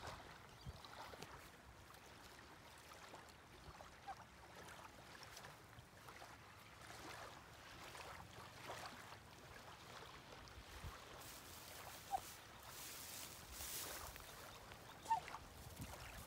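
Quiet outdoor ambience: faint rustling with three short, high bird chirps, the loudest about fifteen seconds in.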